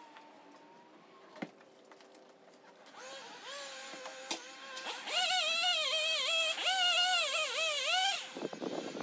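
A gas chainsaw's small two-stroke engine starts about three seconds in, after a single sharp knock. It is revved for a few seconds with a wavering pitch, then drops back near the end.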